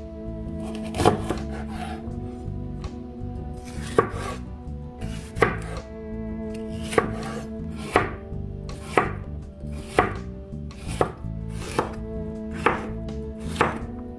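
Chef's knife slicing a red bell pepper on a bamboo cutting board: sharp knocks of the blade on the wood, a few spaced out at first, then about one a second.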